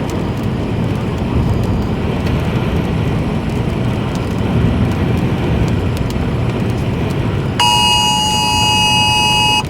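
Steady road and engine noise inside a moving vehicle. About seven and a half seconds in, a loud, steady two-tone emergency alert attention signal starts sounding for a tornado warning, most likely from a phone's wireless emergency alert.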